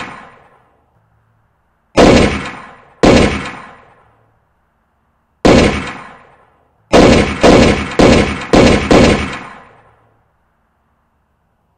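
Eight gunshots, each ringing out and fading away. Two come about a second apart, then a single one, then five in quick succession at about two a second.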